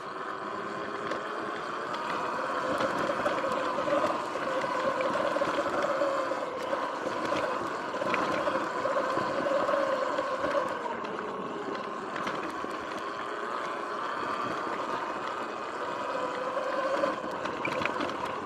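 Sur-Ron X electric dirt bike riding along a dirt trail: a steady electric motor whine that rises and falls with speed, over continuous wind and tyre noise.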